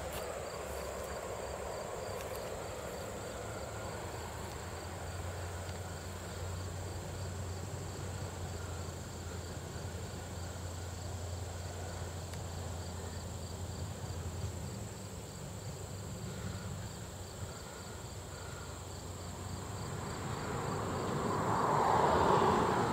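Insects such as crickets chirping steadily in tall grass, over a faint low steady rumble. A rushing swell of noise builds near the end and is the loudest part.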